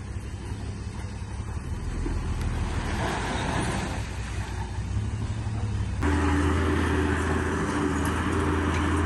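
Diesel engines of heavy earthmoving machinery running, with a swelling rush of noise about two to four seconds in. About six seconds in the sound cuts abruptly to a louder, steadier engine drone with a hum over it.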